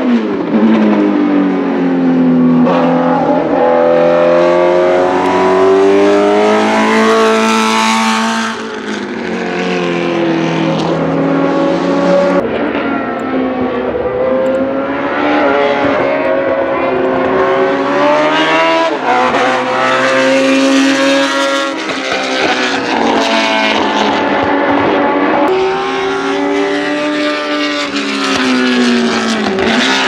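Tiga GC289 Group C2 race car's Ford Cosworth DFL V8 running hard on track. Its pitch repeatedly climbs under acceleration and drops back through gear changes and braking as the car passes.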